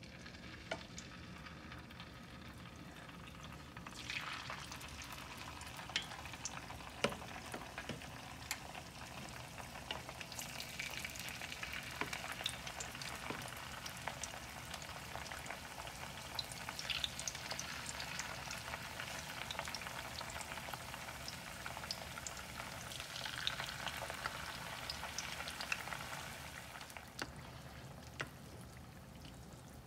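Marinated pork rib pieces frying in hot oil in a frying pan: a steady sizzle with spattering pops that swells about four seconds in as more pieces go into the oil. A few sharp clicks are heard along the way.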